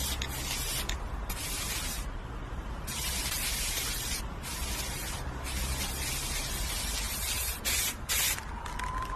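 Several separate bursts of hissing, each about half a second to a second and a half long with short gaps between them, over a steady low rumble.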